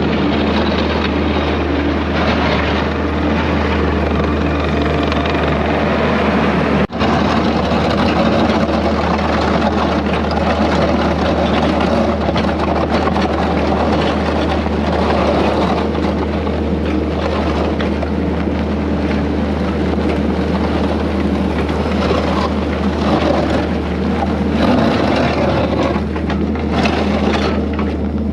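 Diesel engine of a loader working a grader attachment, running steadily under load with a constant low drone. There is a brief break about seven seconds in.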